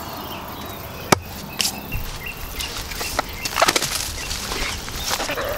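Stiff, dried, fire-singed pig and deer hides crackling and knocking as they are handled and broken up on a wooden chopping stump. One sharp knock comes about a second in, and a cluster of clicks a little past the middle.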